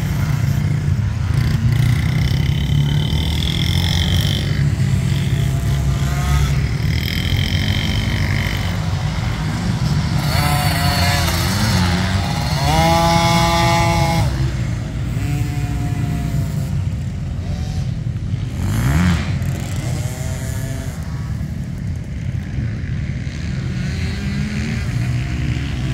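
Dirt bike engines revving up and down as riders go round the motocross track. The nearest and loudest rev comes about halfway through, with another rising rev a few seconds later, over a steady low rumble.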